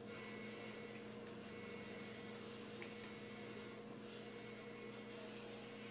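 Quiet room tone with a steady low electrical hum and a faint tick about three seconds in.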